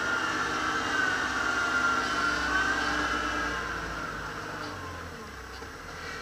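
Kubota tractor engine running steadily with a high whine that wavers slightly in pitch; it grows quieter over the last couple of seconds.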